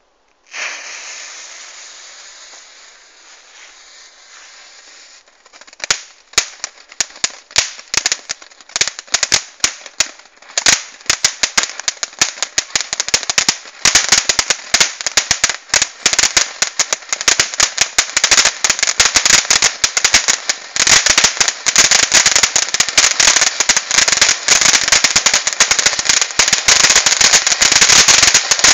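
Weco Überraschungs-Vulkan, a class-2 ground fountain firework, burning. It starts with a hiss that fades over a few seconds. About six seconds in it begins crackling, the cracks coming faster and louder until they merge into a dense, continuous crackle over the hiss of the spark spray.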